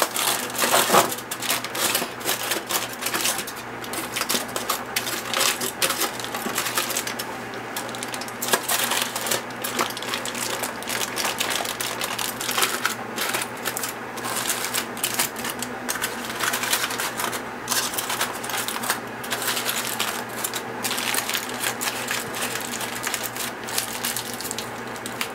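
Aluminum foil crinkling and crackling without a break as it is rolled and crimped by hand tightly around a log of meatloaf.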